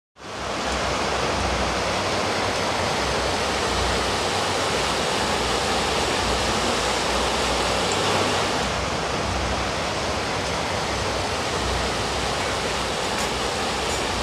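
Shallow mountain stream rushing over rocks: a steady, even rush of water that fades in at the start.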